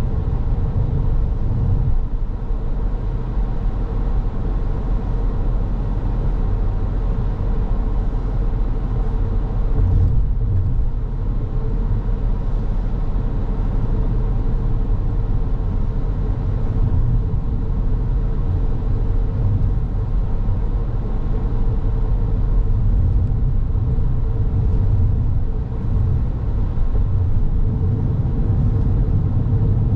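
Car driving along at steady speed: continuous low road and engine rumble with a steady hum.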